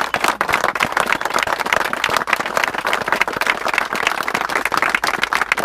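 A group of people applauding, steady hand clapping throughout.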